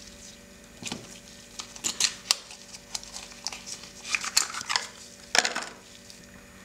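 Gloved hands handling small cardboard nail-polish boxes and a glass nail-polish bottle: a string of sharp clicks, taps and short scrapes, with a longer scrape a little past five seconds in.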